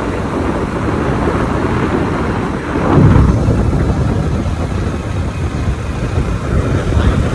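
Wind rushing over the microphone of a phone on a moving motorcycle, mixed with the motorcycle's running and road noise. It swells sharply about three seconds in.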